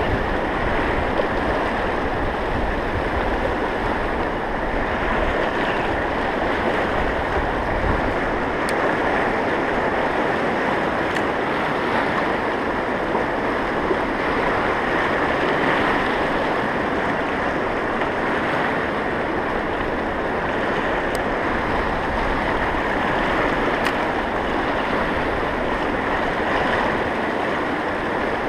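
Fast mountain river, the Poudre, rushing through rapids over rocks: a steady, even whitewater rush.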